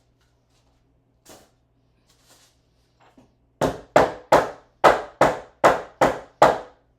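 A faint knock, then nine quick hammer blows in a steady rhythm, about three a second.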